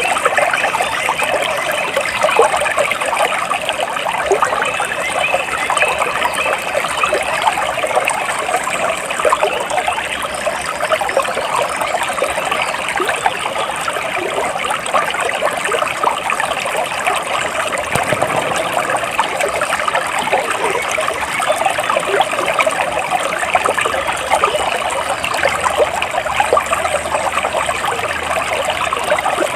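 Flowing water in a small stream, trickling and babbling steadily with many small splashes.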